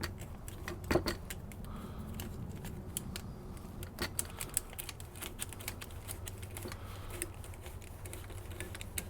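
Worm-drive hose clamp being tightened with a hand tool: irregular small metallic clicks and ticks, over a steady low hum.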